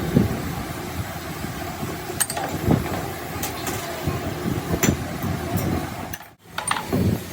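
Workshop noise from excavator repair work: a steady low rumble with scattered sharp metallic clicks and knocks, broken by a brief cut about six seconds in.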